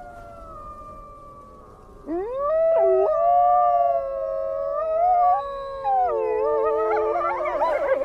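Grey wolves howling. A fainter long howl trails off, then about two seconds in a louder howl rises in and holds with slow bends in pitch. Other voices overlap it, becoming a wavering chorus near the end.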